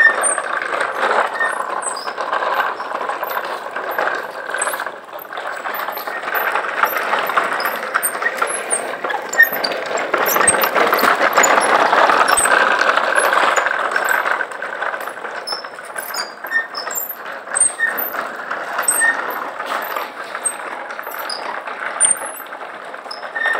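Hard wheels of a wooden ride-on toy tractor and its two towed wooden trailers rolling over rough concrete: a steady grinding rumble full of small rattles and clicks, with a thin squeal from the wheels. It is loudest about halfway through, as the trailers pass close by.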